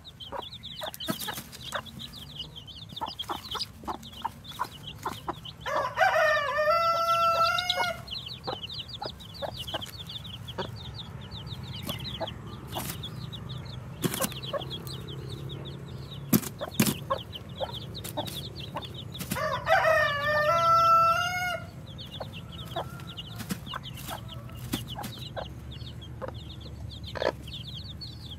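Newly hatched chicks peeping continuously in quick high chirps. A rooster crows twice, about six seconds in and again about twenty seconds in, each crow about two seconds long and louder than the peeping.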